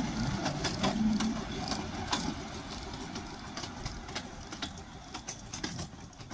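1970 Severn Lamb steam locomotive No. 3 Dougal running past and away over the track, with irregular clicks and knocks from its wheels on the rails. The sound fades steadily as it moves off.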